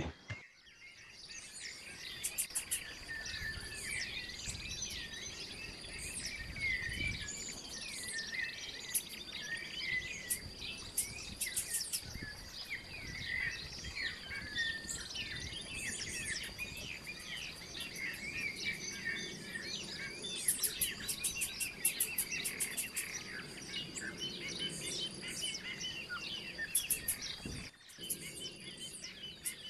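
Fairly faint outdoor chorus of many birds chirping and warbling over a steady high-pitched insect drone, with quick rattling trills, like crickets or katydids, mixed in. There is a brief drop-out near the end before the chorus resumes.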